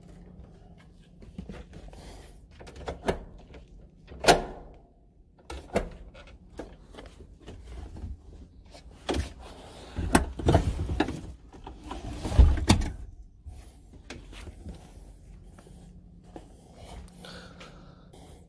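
Car rear seatback being unlatched and folded down: a run of clicks, knocks and rustling handling noise, with loud thumps about four seconds in and again about twelve seconds in.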